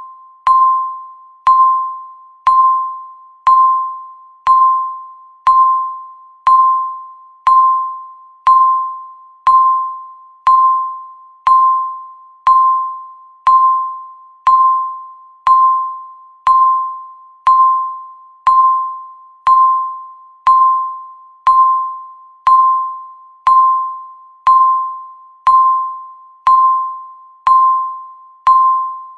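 Electronic countdown-timer beep: a single tone sounding once every second, each beep starting sharply and fading away.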